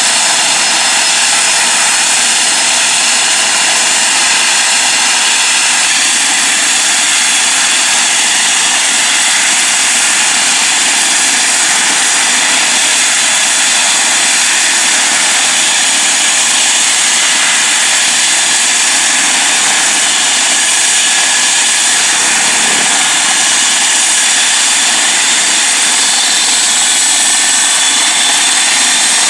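Eurocopter EC135 T2 helicopter's twin Turbomeca Arrius turboshaft engines running on the ground with the main rotor turning. The sound is loud and steady, with several high tones holding level throughout.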